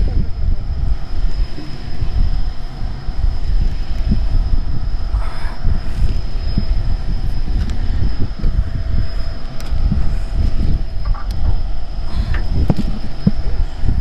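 Fishing boat noise: a loud, steady low rumble with irregular knocks and thumps, and a faint steady high whine above it.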